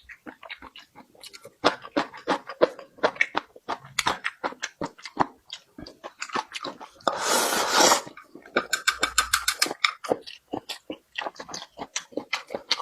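Close-miked chewing and lip-smacking: a fast, irregular run of wet clicks and smacks from eating. About seven seconds in, a louder rushing noise lasts about a second, followed by a quick rattle of clicks.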